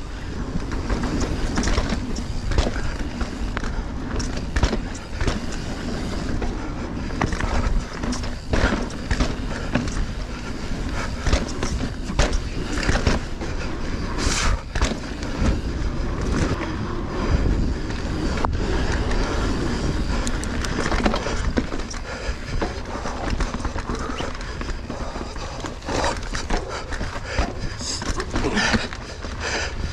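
Mountain bike riding fast over a dirt singletrack trail: continuous tyre rumble with frequent knocks and rattles as the bike goes over small step-downs and bumps, and wind buffeting the camera microphone.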